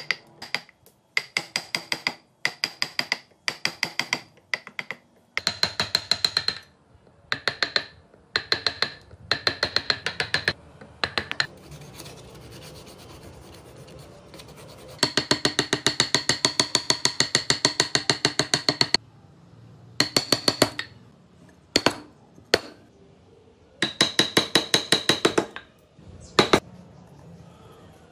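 Hand tools working wood: repeated short bursts of rapid scraping strokes as a chisel and a flat blade shave the carved body, with a stretch of softer, steady sandpaper rubbing on the wood partway through.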